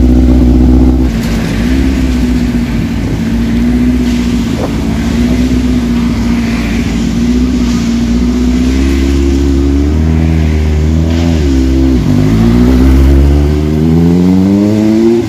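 Yamaha YZF-R1 inline-four engine idling steadily, with street traffic hiss around it. About twelve seconds in its pitch dips, then climbs steadily as the bike pulls away and accelerates.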